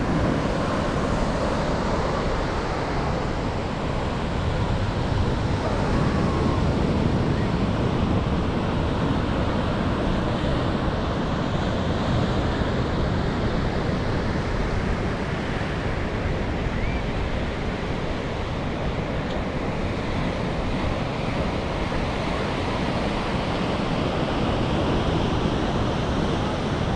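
Ocean surf breaking on a sandy beach, a steady wash of waves, with wind rumbling on the microphone.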